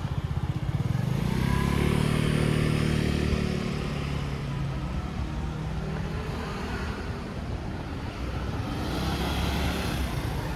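Motor vehicle engine running close by, rising to its loudest for a few seconds about a second in, over steady street traffic noise.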